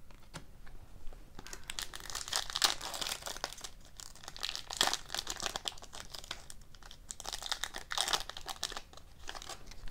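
Foil wrapper of a trading-card pack being torn open and crinkled by hand, in irregular bursts of crackling that are loudest about two and a half seconds in and again about eight seconds in.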